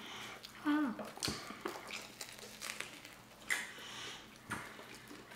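Close-miked mukbang eating sounds: chewing, smacking and small crunches of spaghetti-stuffed garlic bread, heard as scattered short clicks, with a brief hummed vocal sound about a second in.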